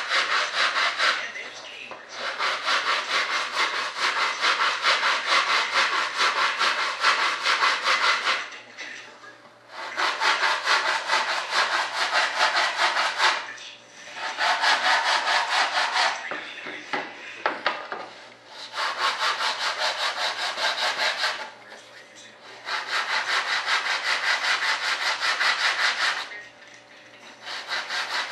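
Coarse 36-grit sandpaper being worked hard across a primed model-aircraft part by hand, a rapid back-and-forth rasping in bouts of a few seconds with short pauses between, to get the surface flat and straight.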